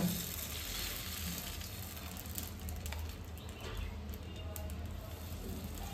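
Dosa batter sizzling softly as it is drizzled onto a hot iron tawa, a steady hiss with a few faint clicks.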